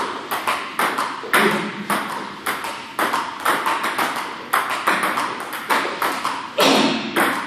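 Celluloid-style table tennis ball clicking off the table and the rubber paddle in a steady forehand rally, about two to three sharp clicks a second.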